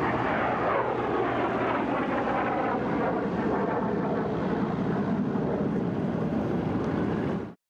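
Piston-engined propeller airplane flying past at speed, its engine note sliding down in pitch about a second in. The sound cuts off suddenly near the end.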